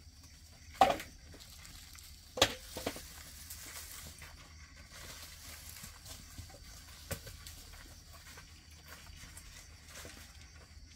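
Two sharp knocks about a second and a half apart, then a few fainter taps, over a faint outdoor background.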